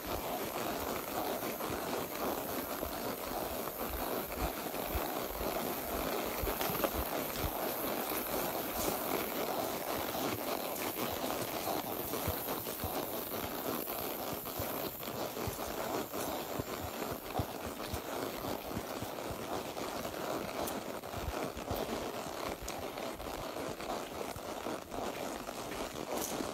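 Horse's hooves thudding irregularly on soft ground over a steady outdoor rush of noise.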